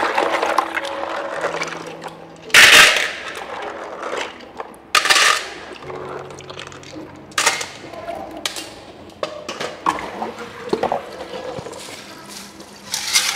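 Water pouring and splashing in a metal pot in several short bursts, the loudest about two and a half seconds in: rice being rinsed in a rice-cooker pot.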